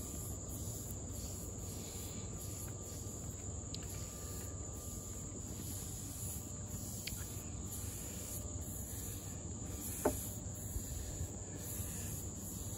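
Chorus of insects, crickets, chirring high and steady, with a faster pulsing layer about once a second. A few brief sharp clicks stand out, the loudest about ten seconds in.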